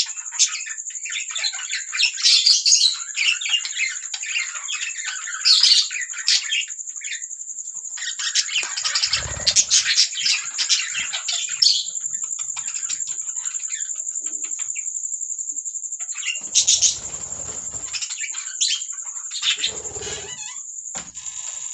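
Pet budgerigars chirping and warbling in dense bursts, with a lull in the middle, over a steady high-pitched tone.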